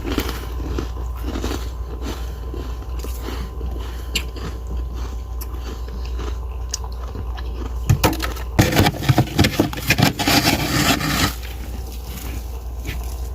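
Powdery freezer frost crunching, with scattered crunches and scrapes, then a denser, louder stretch of crunching from about eight to eleven seconds in. A steady low hum runs underneath.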